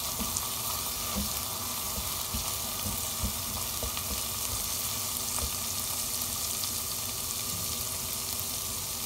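Ginger, garlic and green chilli paste sizzling steadily in hot oil in a non-stick pan, with small scrapes and taps of a plastic spoon stirring it.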